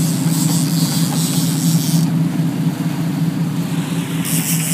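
Sportfishing boat's engine running at a steady drone, with a high hiss rising over it twice.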